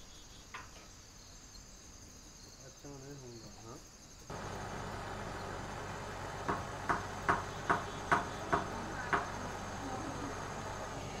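Silversmith's torch flame hissing steadily as it heats a bundle of fine silver wires, coming in suddenly about four seconds in after a quiet stretch. Around the middle comes a run of about nine sharp clicks, two or three a second.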